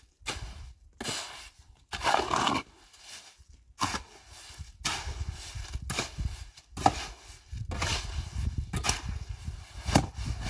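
A series of sharp knocks or blows at uneven spacing, roughly one a second, with a longer scraping sound about two seconds in, over a low rumble.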